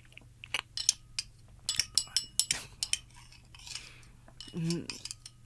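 Utensils clinking and clattering in a run of irregular light knocks, with a brief voice sound near the end.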